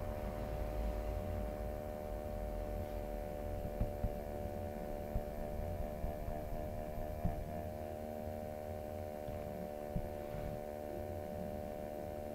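Steady electrical hum, several tones held together over a low rumble, with a few faint clicks.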